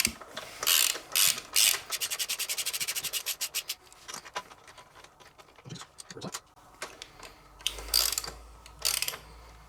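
Socket ratchet clicking in short strokes and then a quick even run of clicks, as the foot peg mounting bolt on a Kawasaki KLR650 is worked loose.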